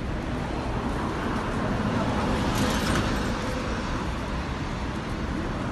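Road traffic: cars, a pickup and a bus running and passing close by, building to a louder pass about halfway through.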